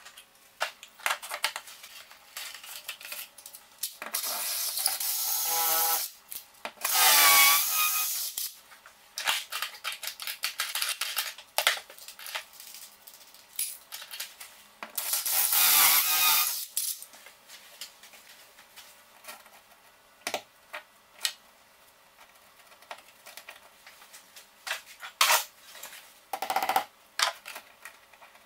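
Power drill running in loud bursts: two close together about a quarter of the way in, with a wavering motor whine, and another about halfway. Between and after them come many short clicks and clinks of small hardware being handled.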